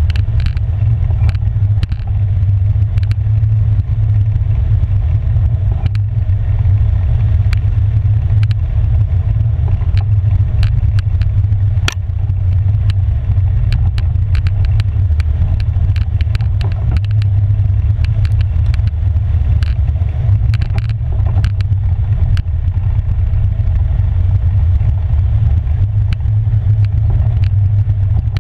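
Polaris 570 EPS ATV's single-cylinder engine running at a steady pace while riding, a loud low drone with scattered sharp clicks and rattles throughout.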